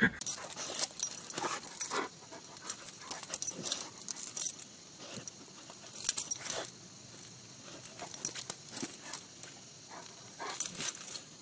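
A dog sniffing at close range: short, irregular sniffs and clicks. A faint steady high hiss runs underneath.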